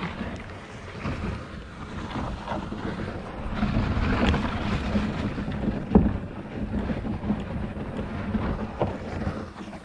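Wind buffeting the microphone while a black plastic supplement tub is handled, tipped out and carried, with a sharp knock about six seconds in.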